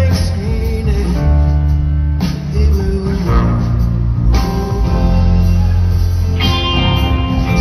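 Live rock band playing amplified through a concert PA: electric guitar lines over bass guitar and drums.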